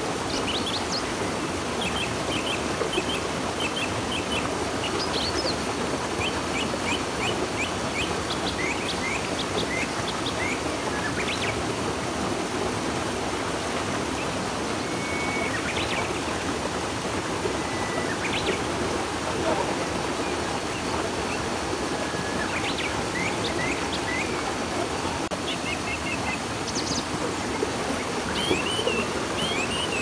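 Steady rush of a flowing river, with small birds chirping in short high notes and a few brief whistles scattered over it.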